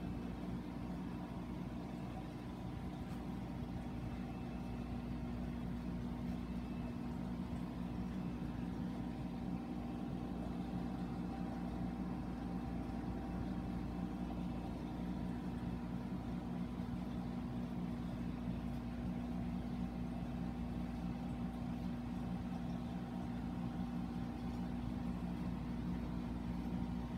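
Steady mechanical hum of a saltwater reef aquarium's water pumps, holding a few constant tones without change.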